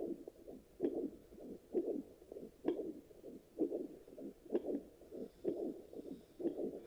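Sonoline B fetal Doppler picking up an adult's own pulse after delivery: a rhythmic whooshing beat a little over once a second, far slower than a fetal heartbeat.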